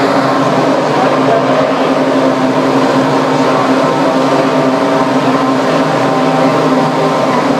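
Formula One cars' 2.4-litre V8 engines running together in a steady, dense wail of several overlapping engine notes.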